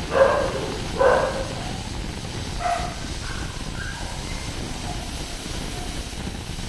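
Steady rushing hiss of a gas burner on high flame under an aluminium pressure cooker that has not yet whistled. Two short barks near the start and a few fainter ones a couple of seconds later.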